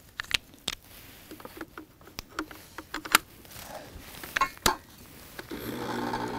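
A run of sharp clicks and knocks as the capsule coffee machine is loaded and handled. About five and a half seconds in, the machine's pump starts up with a steady hum as it begins brewing.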